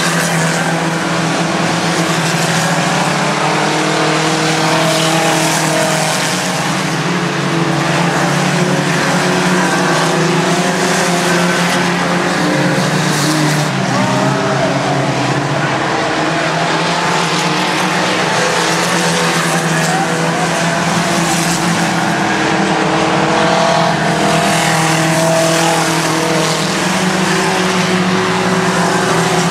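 Engines of a pack of mini pickup trucks racing around an oval track: a loud, continuous engine drone whose pitch rises and falls as the trucks lap past.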